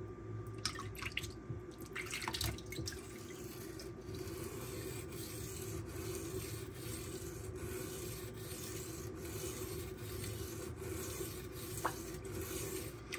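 Steel knife blade (Magnacut, Kershaw Bel Air) stroked repeatedly across a silicon carbide sharpening stone, a steady scratching with a regular rhythm of strokes a little over one a second. There are a few light knocks of handling near the start. The passes are raising a burr along the edge.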